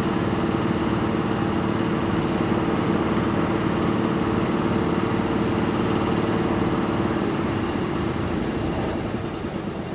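ET22 electric freight locomotive standing with its cooling blowers running: a steady whirring hum with a low drone, easing off slightly near the end.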